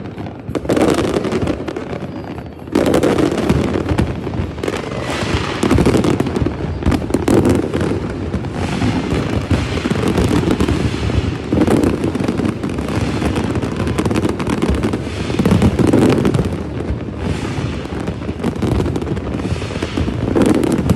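Large aerial fireworks display going off: rapid, overlapping booms of shells bursting, with crackling between them. It eases briefly about two seconds in, then builds back to a dense barrage.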